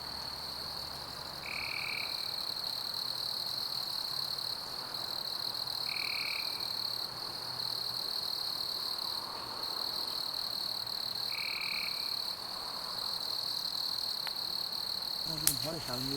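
Jungle chorus of frogs and insects: a steady high-pitched drone, with a short call repeating about every five seconds. A single sharp click comes near the end.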